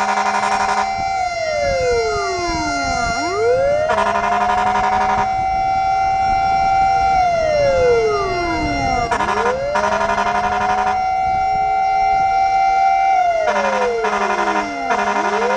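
Fire truck siren wailing in slow cycles: it holds a high pitch for a few seconds, slides down over about two seconds and swoops quickly back up, about every six seconds. A horn blares over it in repeated blasts of one to two seconds.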